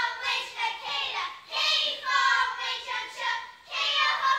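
Children's voices singing, in short phrases with brief breaks between them.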